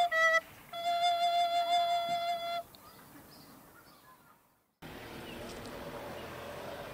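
Soprano recorder playing the closing notes of a tune, a few short notes and then one long held note that stops about two and a half seconds in. After a short silence there is a faint steady outdoor background hiss.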